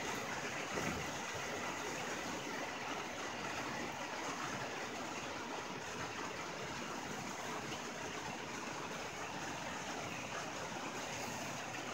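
Rain falling steadily on a tin roof: an even hiss of countless drops.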